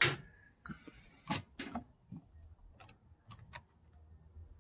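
Irregular clicks and light knocks of RV door-lock hardware being handled and fitted into the door, a few sharp taps close together about a second in and scattered fainter ones later.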